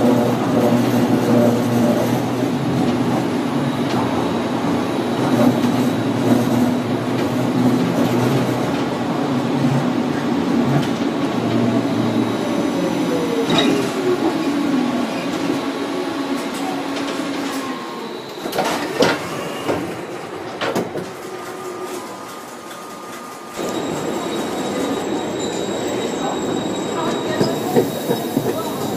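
Siemens Combino NF8 electric tram running on its rails: a steady hum with a whine that falls in pitch about halfway, then a quieter stretch with a few knocks. Near the three-quarter mark the sound jumps abruptly to a different steady running noise with a high whine.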